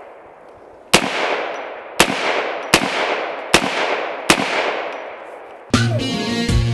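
Five rifle shots, a little under a second apart, each followed by a long echo that dies away. Intro music with a beat starts near the end.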